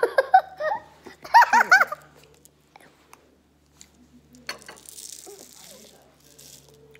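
Girls giggling, a run of short laughs in the first two seconds. Later a soft high hiss of candy sprinkles pouring from a shaker bottle.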